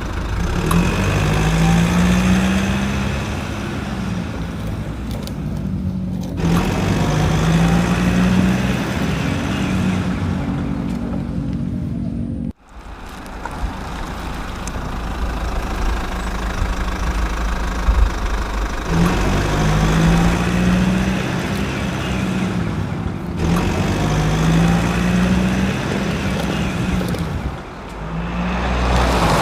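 Truck engine running, its pitch rising and falling in repeated swells like revving. It breaks off abruptly about twelve seconds in and then resumes the same way.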